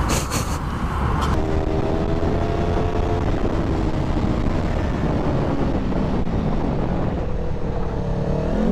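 Sport motorcycle engine running under way, the rider's view over a Yamaha fairing, with heavy wind rumble on the mic. The engine note holds steady, then rises quickly near the end as the bike accelerates.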